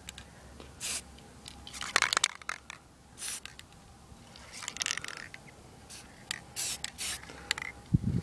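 Black aerosol spray paint being sprayed in a series of short hissing bursts, about eight of them at uneven intervals.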